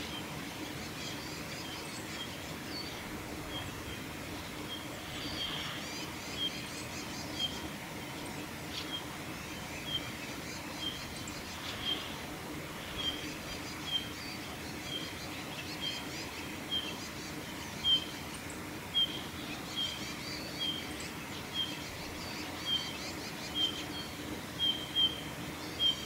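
Male Eurasian bullfinch singing: short soft whistled notes repeated about once a second, coming a little closer together and louder in the second half, over a faint steady hum.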